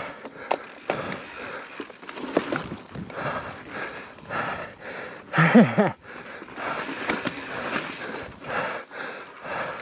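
A mountain biker breathing hard while pedalling a YT Izzo over slickrock, with tyre and drivetrain noise and scattered sharp clicks from the bike. A short vocal sound comes about halfway through.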